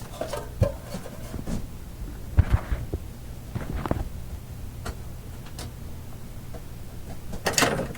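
Scattered light clicks and knocks of small objects being picked up and moved around a workbench while someone searches for something, over a steady low hum. The loudest knocks come about two and a half seconds in, with another cluster near the end.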